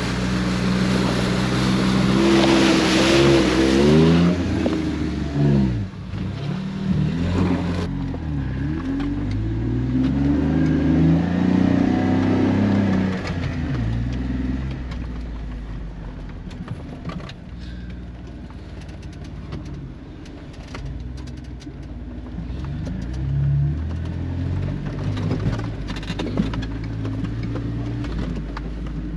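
Jeep engine revving up and down as it drives through muddy flood water, heard from inside the cab. A rush of splashing water comes about three seconds in, and from about halfway through the engine runs quieter with scattered light ticks.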